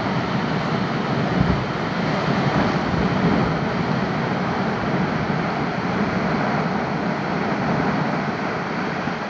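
Perito Moreno Glacier calving: a large section of the ice face collapsing, a long continuous rumble of falling ice that begins to ease off near the end.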